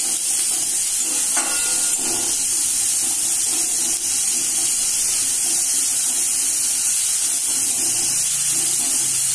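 Chopped onions sizzling in hot oil in a metal wok on a high gas flame, stirred with a spatula, with a steady hiss. Sugar and salt have been added so the onions brown as the sugar caramelizes.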